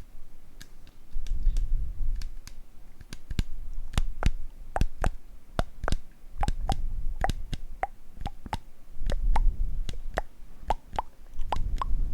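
Close-miked mouth sounds: an irregular run of sharp wet tongue clicks and pitched pops, about two to four a second, with soft low rumbling in between.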